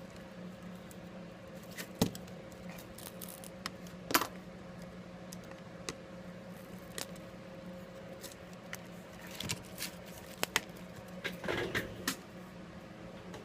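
Scattered sharp clicks and taps of small tools and hard phone parts being handled on a work surface, loudest about two and four seconds in and bunched together near the end, over a steady low hum.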